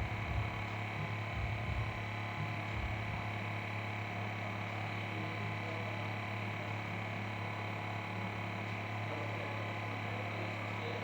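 Steady low electrical hum over even background hiss, with a few faint low knocks in the first few seconds.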